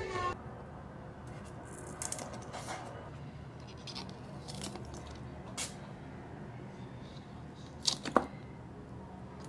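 Scissors snipping green onion stalks in a planter: scattered short snips and clicks, with a sharp pair near the end the loudest.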